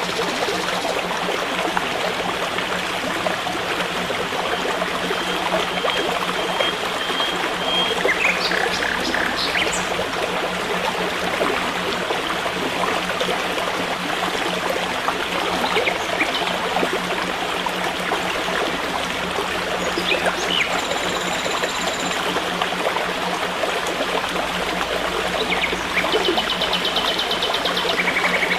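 A stream running steadily, with a few brief high chirps heard over it now and then.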